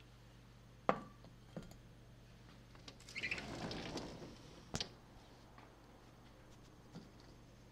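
A few sharp knocks and clicks with a short rustle in between, the sounds of moving about with a handheld camera.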